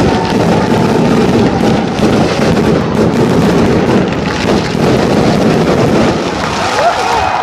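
Fireworks going off in a loud, dense barrage of booms and crackling with no break between bursts.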